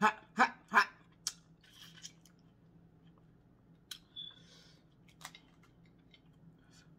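A boiled crawfish being pulled apart and peeled by hand: sharp shell cracks and wet rustles. Three quick, sharp sounds come in the first second, with scattered clicks and snaps after.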